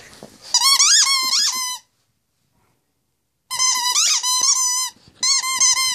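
A plush squeaky toy squeaked over and over in a puppy's jaws as it chews: three bursts of high, wavering squeaks, the first just after the start and two more after a pause of about a second and a half.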